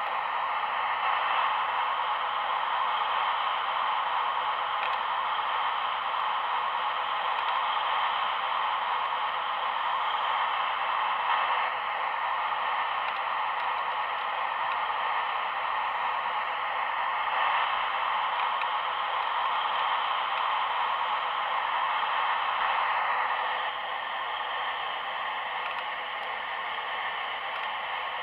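Steady hissing whir, most likely the Magom RC metal excavator's hydraulic pump and electric motors running. It drops slightly in level near the end.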